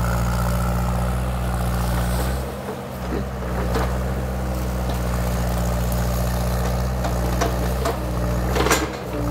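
Case mini excavator's diesel engine running steadily as the boom and bucket work against a tree, the engine note dipping briefly twice. A few sharp cracks sound over it, the loudest near the end.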